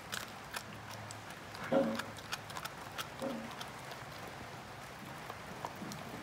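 Greyhound chewing a raw meaty bone with his back teeth: irregular cracks and crunches of teeth on bone, loudest about two seconds in and again about three seconds in.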